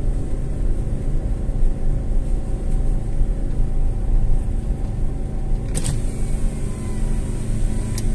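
Car engine and road noise heard from inside the cabin as the car climbs a steep hill road: a steady low drone, with a sharp click about six seconds in and another near the end.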